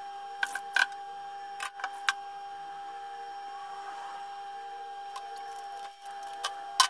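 Black plastic parts of a WMF Perfect pressure cooker lid handle clicking and knocking as they are handled and fitted together: a few sharp clicks in the first two seconds and two more near the end, the last the loudest. A steady faint hum runs underneath.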